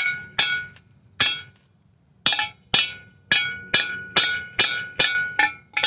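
Hammer blows on the nut-capped anchor bolts of a steel railing post's base plate, driving them down into the concrete: about a dozen sharp metallic strikes, each with a brief ring. Three come in the first second or so, then after a short pause the rest follow steadily at about two a second.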